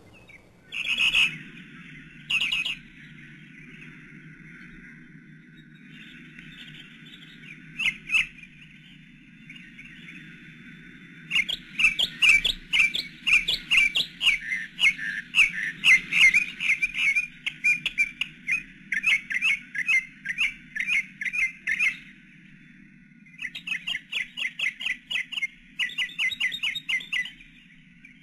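A bird chirping and squawking: a couple of short squawks near the start, then long runs of quick, repeated calls, about five a second. A low, steady hum runs underneath.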